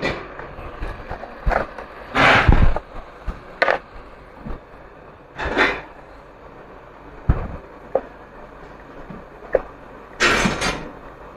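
Hand tools scraping and knocking on a circuit board at a repair bench: several irregular rasping scrapes, each about half a second long, mixed with sharp single taps.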